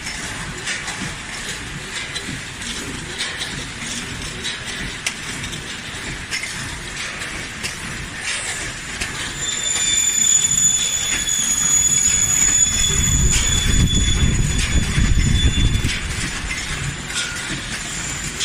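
Compact multihead weigher and packing machine running, with repeated clicks and clatter as it cycles through filling and sealing bags. A steady high whine comes in about halfway and stops a couple of seconds before the end, and a low rumble swells over the same stretch.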